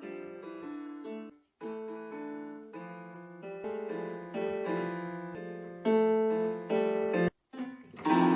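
Background music: a keyboard melody with a piano-like sound, in short phrases that break off briefly about one and a half seconds in and again near the end.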